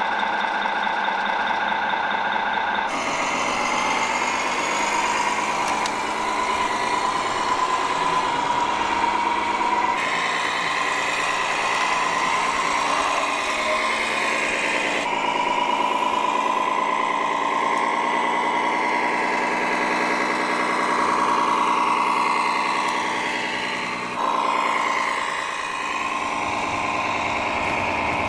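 Radio-controlled model MAN tipper truck running as it tows a trailer: a steady engine-like hum with a whine that rises and falls slightly. The sound changes abruptly several times.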